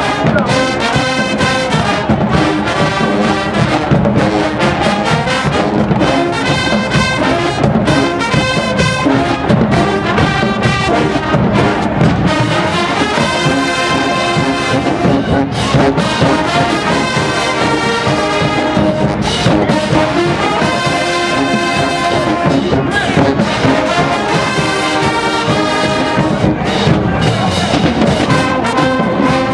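A show-style marching band plays loudly and continuously: massed brass, sousaphones among them, over marching drums.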